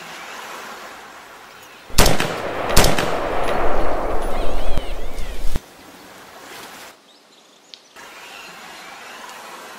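Two sharp gunshot cracks under a second apart, then about three seconds of loud splashing as water sprays up beside a crocodile at the water's edge. The noise cuts off suddenly.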